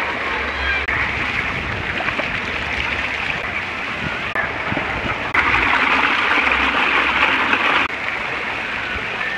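Water spraying and splashing steadily, a continuous hiss that grows louder for a couple of seconds past the middle.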